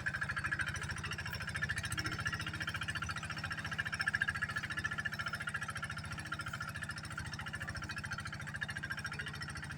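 A rice-field tractor's D12s engine running steadily with a fast, even chugging pulse, slowly getting a little quieter toward the end.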